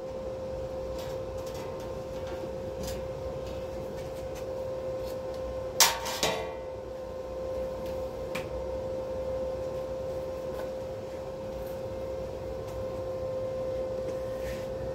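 A steady hum, with one sharp knock about six seconds in and a lighter knock just after it, plus a few faint ticks; the welding arc is not running.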